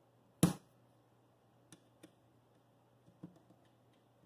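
A metal pin spanner wrench being handled on a telescope mount's ring nut: one sharp knock about half a second in, then a few faint clicks as the wrench is fitted and worked.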